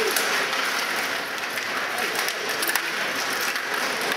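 Steady dense clatter of Stiga table hockey play: rods, plastic players and puck clicking and rattling against the rink.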